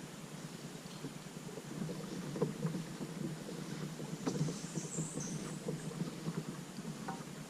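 Faint water sounds around a kayak: low, steady lapping and swishing dotted with small irregular splashes and knocks.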